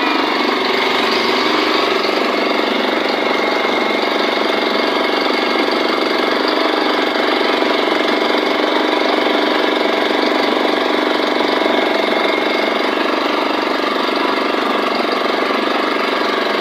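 Motorboat engine running steadily at an even speed, with no change in pitch or level.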